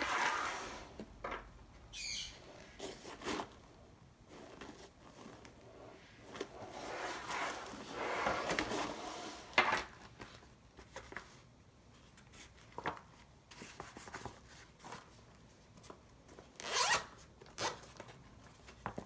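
Nylon fabric and mesh of a laptop backpack rustling and rubbing as it is handled, in irregular bursts with a longer stretch near the middle, and a zipper pulled in short runs.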